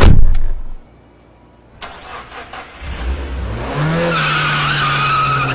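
A loud, sudden boom that sweeps down in pitch, then a few sharp knocks about two seconds in. After that a car engine starts and revs up, rising in pitch, then holds steady with a high wavering squeal over it.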